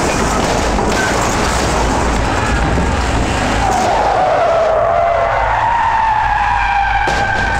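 Film sound effects of a car skidding hard across dirt, with a wavering tyre squeal setting in about halfway through.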